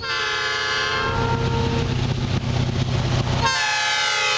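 Diesel locomotive air horn sounding a long blast over a low engine rumble; about three and a half seconds in a fresh blast begins, its pitch sliding slightly lower.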